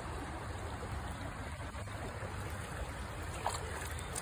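A small stream running steadily over a gravel bed, an even rushing hiss with a low rumble beneath it.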